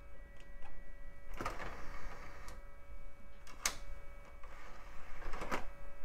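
GoldStar CD drive loading a disc: its tray and spindle mechanism whirs and clicks, with a sharp click about two-thirds of the way through and another near the end, over a faint steady whine from the running computer.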